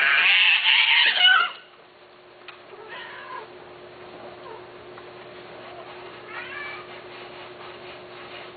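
Domestic cat yowling loudly for about a second and a half, the cry falling at the end, then two quieter meows about three seconds and six and a half seconds in. A faint steady hum runs underneath.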